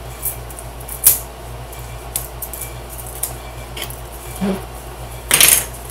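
Knife blade clicking and scraping as it pries glued wooden marquetry pieces off the back of a small panel: a few sharp ticks, then a louder half-second scrape near the end. The pieces are glued a little too tight.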